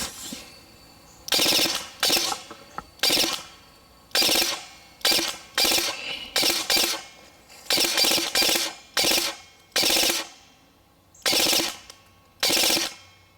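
EMG Seekins Precision SP223 airsoft electric rifle (AEG) firing on full auto in about a dozen short bursts of rapid shots, each a fraction of a second long, with brief gaps between them.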